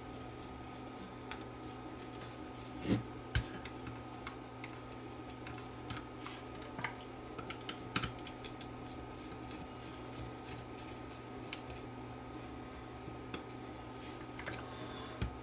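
Scattered light clicks and taps from hands working on an opened portable cassette recorder, easing its circuit board up. There are two louder knocks about three seconds in and another near the middle, over a faint steady hum.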